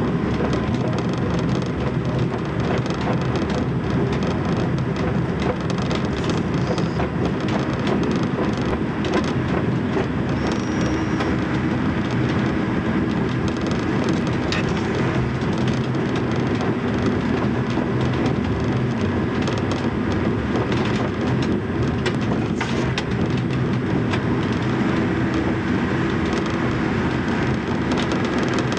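Diesel railbus running along a branch line, heard from the driver's cab: a steady engine and running drone, with occasional clicks from the wheels over the track.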